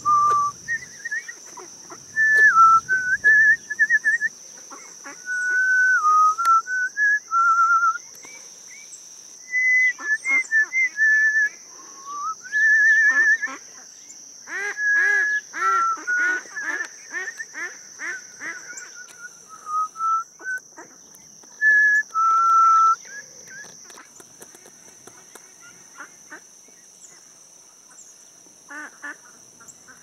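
A person whistles a string of held notes and short warbling trills, calling to a male northern cardinal. A run of short, lower honking calls comes in partway through and again near the end, over a steady high-pitched drone.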